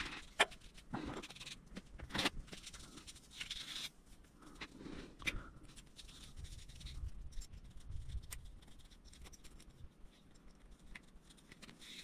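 Paper towel rustling and rubbing against a hydraulic disc brake caliper as it is wiped clean, a strip of paper drawn through the pad slot, with scattered light clicks of the caliper being handled.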